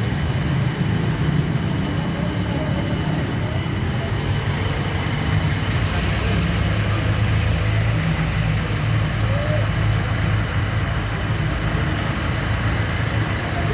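Steady low rumble of an idling diesel vehicle engine, with a faint high whine held above it.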